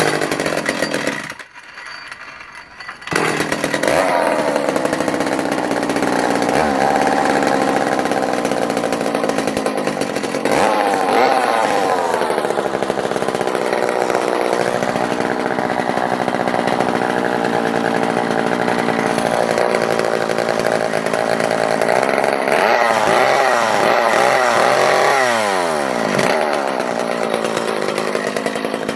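McCulloch top-handle chainsaw's small two-stroke engine pull-started on a bit of choke after stalling. It catches about three seconds in and runs steadily, with the revs rising and falling back a few times.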